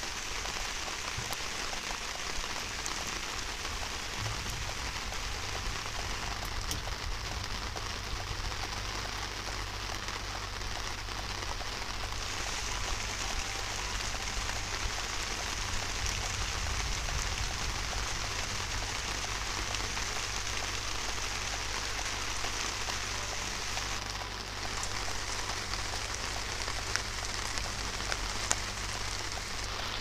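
Steady rain falling, with scattered sharp ticks of single drops striking close by.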